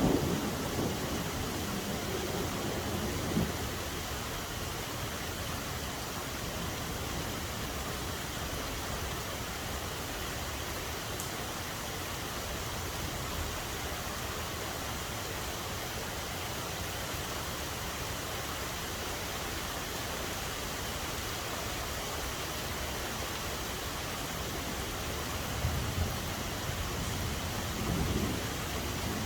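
Steady rain falling, an even hiss, with a few brief louder low swells about a second or two in and again near the end.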